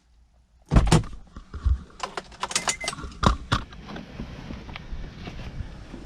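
Car door and key handling: a heavy knock about a second in, then clicks and key jingling, another sharp knock about three seconds in, then a steady background hiss.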